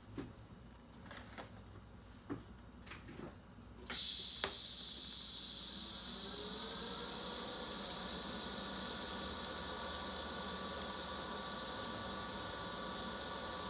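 A few faint clicks and taps, then about four seconds in a TIG welding arc strikes with a sharp crack. It settles into a steady buzzing hiss as a bead is laid on a cast iron manifold where it meets a stainless steel V-band flange.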